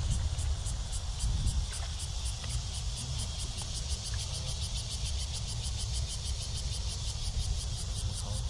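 Insects calling in a steady high-pitched pulsing rhythm, about five pulses a second, over a constant low rumble.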